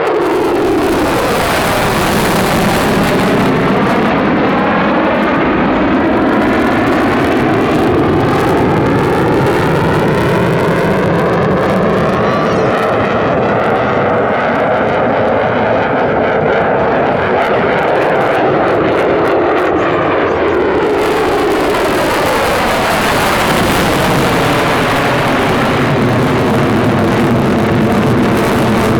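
F-22 Raptor's twin Pratt & Whitney F119 turbofan engines, loud and continuous as the jet flies a demonstration pass, the tone sweeping down and back up with a phasing effect as it moves past.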